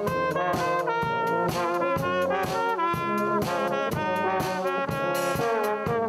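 Brass band playing: trombone and tubas carrying the tune over a drum kit keeping a steady beat with cymbals.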